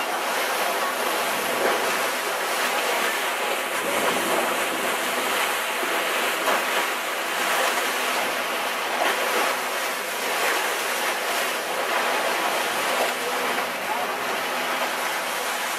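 Steady rush of sea water and waves around a moving boat, with wind noise on the microphone.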